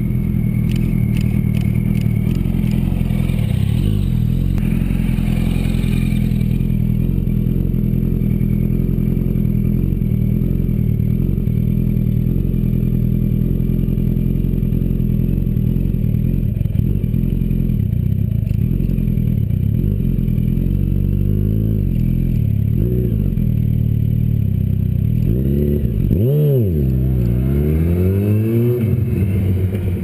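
Yamaha YZF-R1 inline-four sportbike engine running close by: a steady idle, with the revs rising and falling in a series of throttle blips in the second half, and the biggest rev about three seconds before the end as the bike pulls away.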